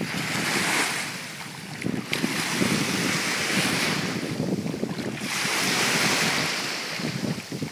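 Small waves washing onto a sandy beach, the hiss rising and falling every couple of seconds, with wind buffeting the microphone.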